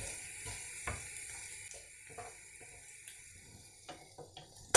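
Scrambled eggs and ham sizzling faintly in a non-stick frying pan while a wooden spatula stirs and scrapes them with light taps. The sizzle fades over the first couple of seconds. At the very end the spatula knocks sharply on the pan.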